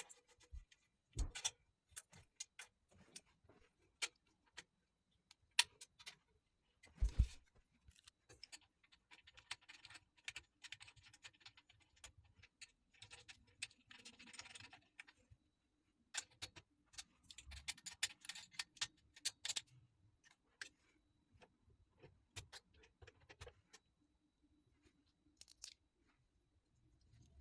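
Scattered light clicks, knocks and metallic clinks of parts and hardware being handled while a metal bar cart is assembled, with a few longer stretches of softer, noisier handling.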